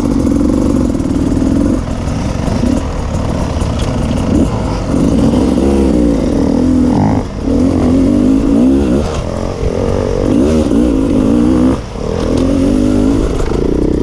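Enduro motorcycle engine heard close up, revving up and down again and again with the throttle as the bike is ridden, with brief drops in between.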